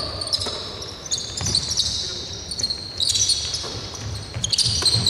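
Basketball bouncing on a hardwood court amid short, high sneaker squeaks from players cutting across the floor.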